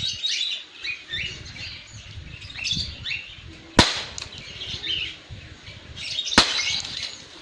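Two sharp shots from a Beretta 84FS full-metal blowback CO2 BB pistol, about two and a half seconds apart, with birds chirping throughout.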